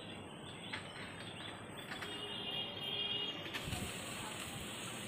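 Outdoor ambience: a steady background hiss with faint bird chirps in the middle, the background shifting abruptly about three and a half seconds in.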